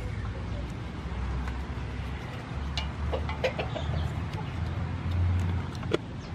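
Kitchen knife cutting and cracking through raw lobster shell, with short sharp clicks, the sharpest near the end. A chicken calls a few times around the middle, over a steady low rumble of wind on the microphone.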